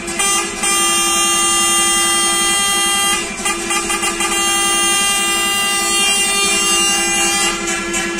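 Coach air horns sounding in two long blasts of about three seconds each, the second starting near the middle: protest honking from a line of parked coaches.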